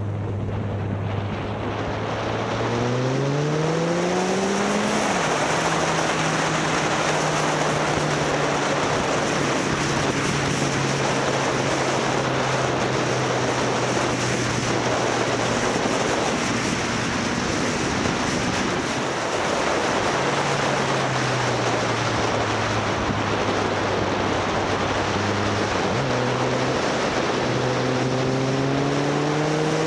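Motorcycle engine pulling up through the revs, shifting up about five seconds in, then holding a steady cruise. It eases off around twenty seconds in and climbs again through the revs near the end. Heavy wind noise rushes over the microphone throughout.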